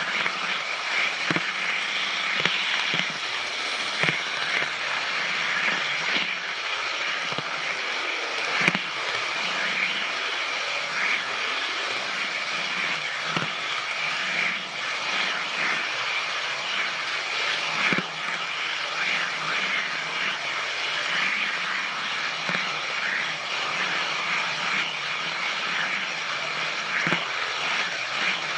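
N-gauge model train running on its track, heard close up from the moving train: a steady whirring hiss of the motor and wheels on rail, with irregular sharp clicks as the wheels cross rail joints.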